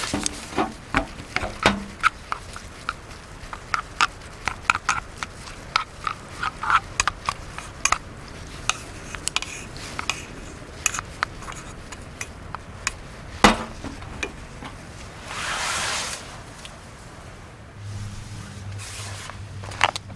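Objects being handled: many light clicks and taps, with one sharper knock about two-thirds of the way through. A short hiss lasts about a second near three-quarters of the way in, and a low hum follows near the end.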